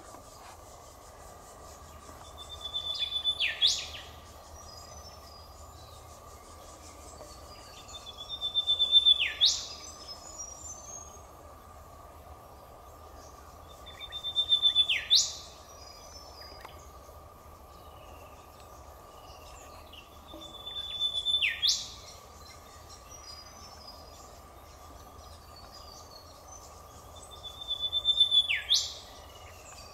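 Eastern whipbird calling five times, about every six seconds: a held high whistle that ends in a sharp whip-crack, each followed by a few short chirps. A steady insect drone runs underneath.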